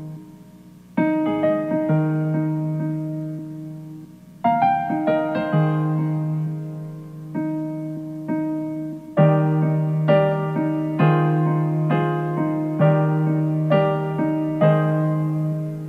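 Slow, gentle piano music: chords struck and left to ring out over a held low note, coming more regularly, about once a second, from about nine seconds in.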